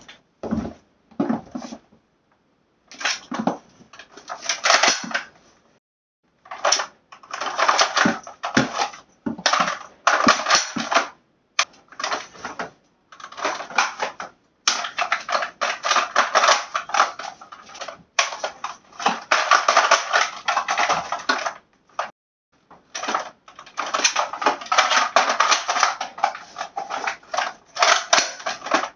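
Handling noise from an airsoft rifle and costume gear: bursts of rustling, crinkling and light plastic clatter with occasional clicks, coming and going every second or two with short pauses between.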